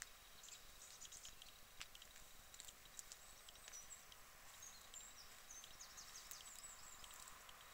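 Near silence: faint outdoor hiss with thin, high bird chirps and a few small scattered clicks.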